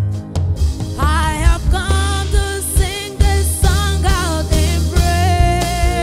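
Gospel worship song: a woman singing lead, with backing singers, over a band accompaniment with a steady bass. A long held vocal note comes about five seconds in.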